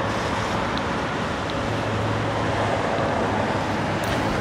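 Steady hiss of falling rain on an open street, with road traffic running underneath.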